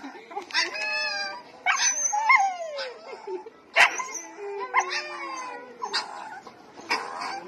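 A dog whining and yelping in a string of short, high, wavering cries, some sliding down in pitch. A short sharp knock about four seconds in is the loudest sound.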